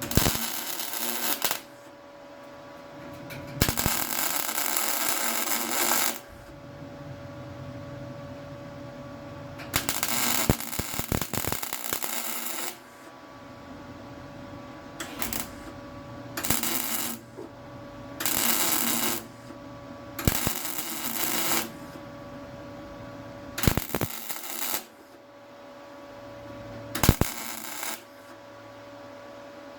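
Welding on car body steel in short stop-start runs: about ten bursts of crackling, each one to three seconds long, with a steady hum between them.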